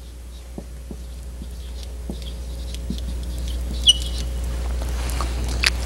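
Dry-erase marker writing on a whiteboard: faint scrapes and taps with a short high squeak about four seconds in, over a steady low hum.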